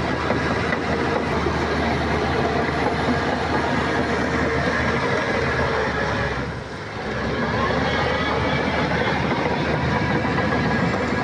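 Shantui crawler bulldozer working: its heavy diesel engine and steel tracks run steadily and loudly, with a brief dip in level about two-thirds of the way through.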